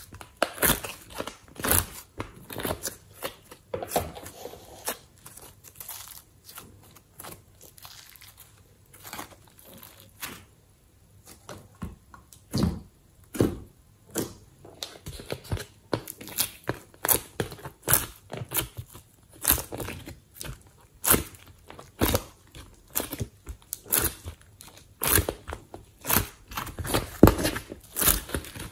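Glossy slime being squeezed and pulled by hand out of an ice cube tray, making irregular sticky clicks and crackles, with a quieter stretch about ten seconds in.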